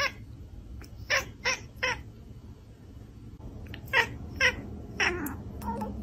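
Domestic cat meowing in a series of short calls: three quick meows about a second in, two more around four seconds, then a longer meow that falls in pitch.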